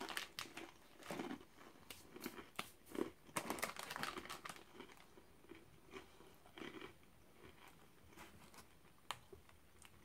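Small soy-sauce crackers being crunched and chewed, a run of irregular crackly crunches that thins out after the first few seconds, with a plastic snack wrapper crinkling as it is handled.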